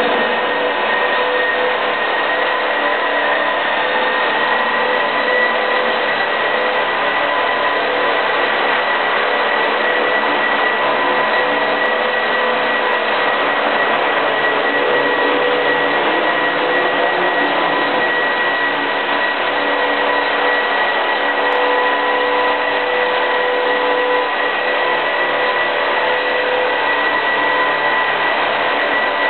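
Radio-controlled scale model helicopter on King II mechanics hovering and flying: a steady high motor-and-gear whine over the rushing noise of its rotors, holding level throughout.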